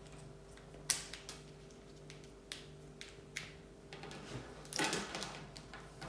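Scattered clicks and snaps of plastic chain fidget toys, segmented links being twisted and clicked into new positions by hand. The clicks come a few at a time, with a busier rattle of clicks near the end.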